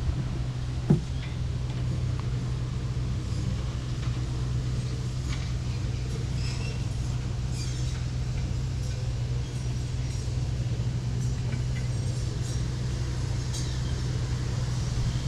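Steady low background rumble with one sharp thump about a second in.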